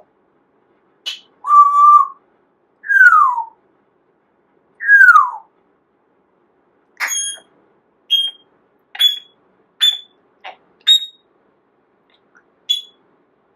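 Parrot whistling: a short level whistle, then two long falling whistles, followed by a string of about seven short, sharp, high chirps roughly one a second.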